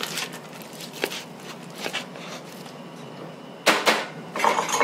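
Hands squeezing and mixing wet sourdough bread dough in a plastic tub, working in salt and water: soft squelches and light knocks of the tub, then a louder brief sound of the hand against the tub near the end.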